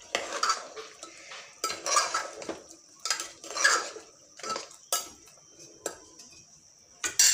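A metal spoon stirring ridge gourd and chana dal in a pressure cooker: a series of rough scraping strokes against the pot, about one a second, with sharp metal clinks, the loudest near the end.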